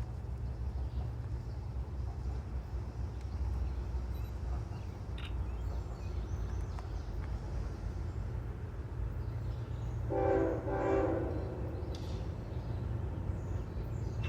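Low, steady rumble of an approaching CSX diesel freight train, with two short blasts of the locomotive's air horn about ten seconds in.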